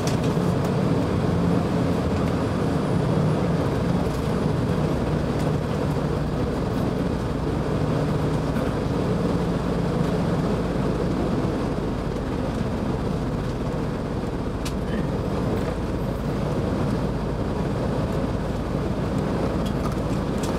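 Steady engine drone and road noise heard from inside a moving tour bus, with a low hum that weakens about halfway through.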